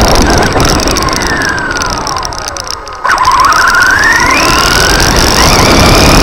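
Brushless electric motor (3650-size, 3300kv) of an RC car whining over steady road noise from the tyres, heard from a camera riding on the car. The whine falls and fades as the car eases off the throttle for about three seconds, then cuts back in suddenly and rises sharply as the throttle is opened again. The loose camera buttons rattle throughout.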